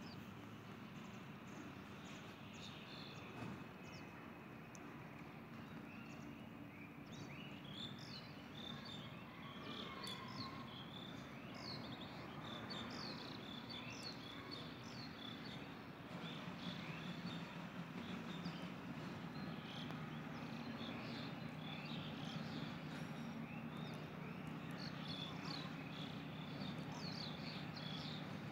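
Small birds chirping in many quick, short calls over a steady low hum. The chirping gets busier after several seconds, and the hum grows a little louder about halfway through.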